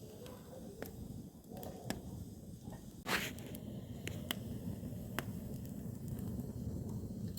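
Log fire burning in a brazier, crackling: scattered sharp pops over a steady low rumble, with one louder crack about three seconds in.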